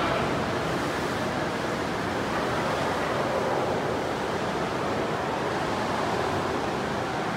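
Ocean surf surging and breaking inside a sea cave, a steady rushing noise without let-up.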